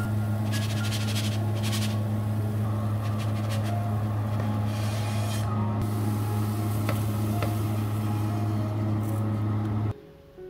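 A steady low electrical hum from the kitchen's electric hob, with faint scraping and a few light clicks as a spatula lifts a thin chickpea-flour pancake from the pan onto a plate. The hum cuts off suddenly near the end.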